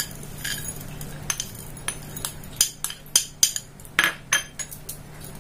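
Metal spoon clinking and scraping against glass bowls as chopped dry fruits are spooned from one bowl into another: a run of sharp clinks, loudest about four seconds in.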